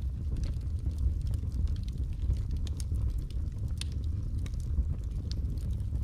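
Wood logs burning in an open fireplace: a steady low rumble of flame under frequent small, irregular crackles and pops, with a few sharper snaps in the second half.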